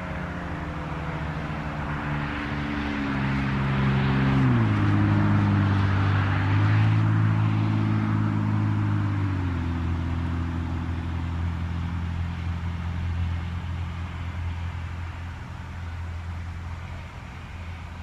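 Federal Signal 2001-SRN electromechanical rotating siren winding down at the end of its alert: its low tone falls in pitch in steps. It swells in loudness about four seconds in as the rotating horn turns toward the listener, then settles into a low hum that slowly fades.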